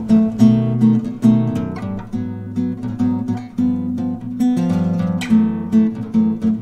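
Background music: guitar playing plucked notes in a steady rhythm.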